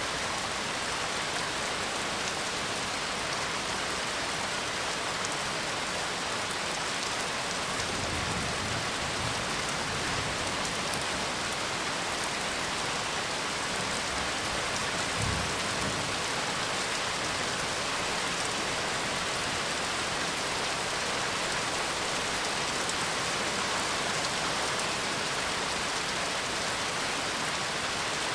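Steady rain falling, with two low rumbles of thunder, the first about eight seconds in and a shorter one around fifteen seconds.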